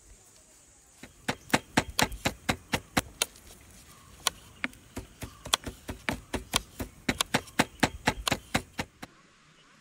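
Knife chopping vegetables on a wooden cutting board: quick, uneven knocks, about four a second, that stop abruptly near the end.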